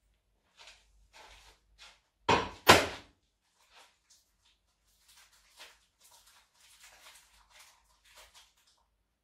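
Two loud thunks in quick succession, about half a second apart, as things are knocked down on a kitchen counter. Faint light clatter and rustling follow.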